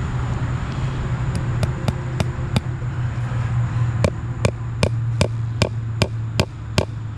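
Hammer striking in a steady rhythm, about two to three blows a second: light taps at first, harder blows from about four seconds in. A steady low engine hum runs underneath.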